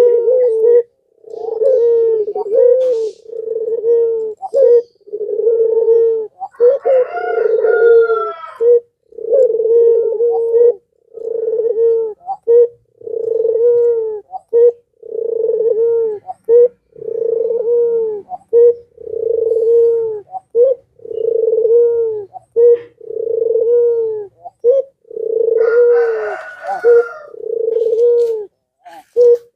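Caged ringneck (Barbary) dove of the long-cooing 'puter pelung' type cooing without pause. It gives a long series of low, drawn-out coos, one every second or two, each dipping in pitch at its end.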